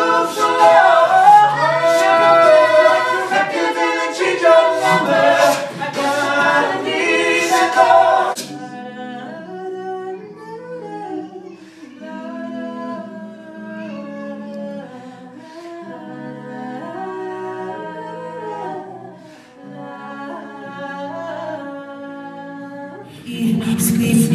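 A cappella vocal group singing in close harmony with no instruments, loud for the first eight seconds and then softer sustained chords. Near the end it cuts to a louder passage with a strong bass voice underneath.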